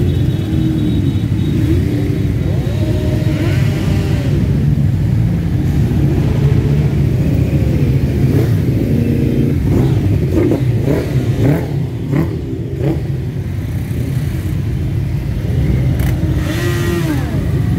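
A large pack of motorcycles running together at low speed: a dense, steady engine rumble with many overlapping throttle blips, each rising and falling in pitch.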